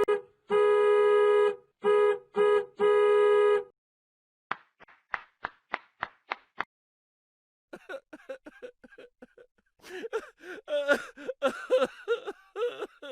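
A sequence of stock sound effects: a horn honks four times (long, short, short, long), then about eight sharp taps in quick even succession, then a busy jumble of clattering, pitched sounds.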